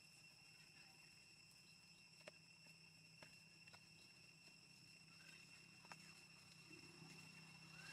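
Near silence: a faint steady high-pitched insect hum, with a few soft clicks.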